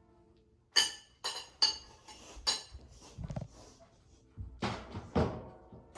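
Spoons clinking and scraping against baby food containers: four sharp clinks in the first couple of seconds, then duller knocks and handling noise.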